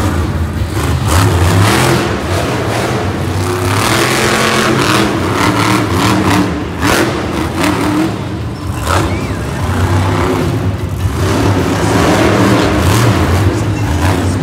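Monster truck's supercharged V8 revving up and down repeatedly as the truck throws wheelies on the dirt arena floor.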